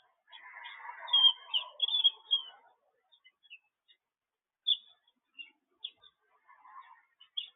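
Birds chirping: short, high chirps scattered through, loudest and thickest a second or two in, over a lower, noisier chatter that stops after about two and a half seconds.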